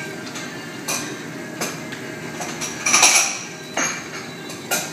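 Dishes and metal utensils clinking and knocking at a restaurant table: about half a dozen separate clinks over a steady background hum, the loudest a short cluster about three seconds in.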